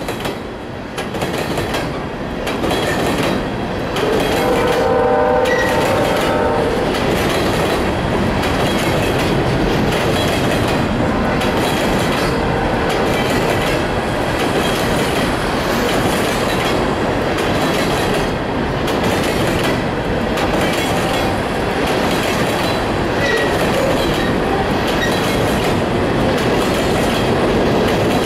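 Empty ballast hopper cars rolling past close by: a steady rumble and clatter of steel wheels on the rails. A brief pitched tone sounds about five seconds in.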